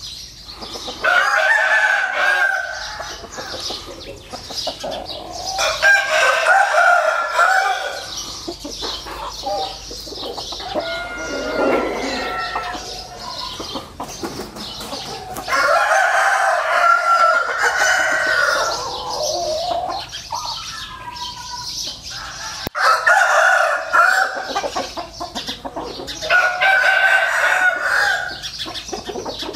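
Fighting-breed roosters (Vietnamese gà nòi) crowing again and again, about five long crows with quieter calls in between.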